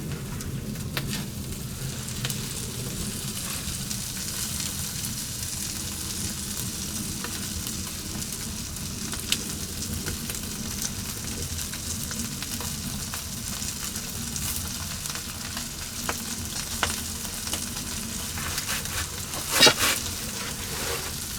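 Spanish mackerel sizzling on a wire grill over wood-fire charcoal, with fat dripping onto the hot coals and the fire crackling in small clicks. A single louder sound comes near the end.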